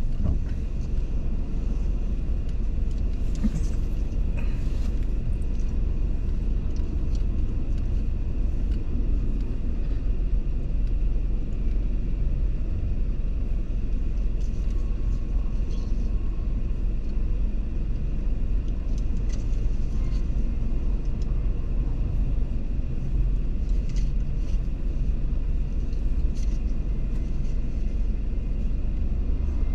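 Steady low rumble inside a car's cabin while the car stands still in traffic, with its engine idling and other vehicles around it.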